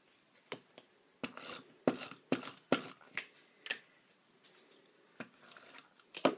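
Irregular light clicks and taps from a glue roller and small paper cards being handled on a wooden tabletop, with one sharper click near the end.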